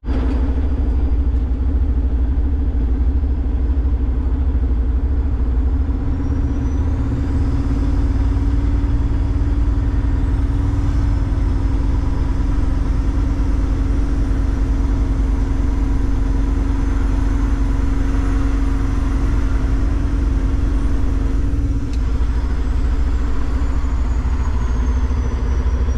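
Cummins diesel semi truck running steadily on the road, a loud, even drone of engine and road noise.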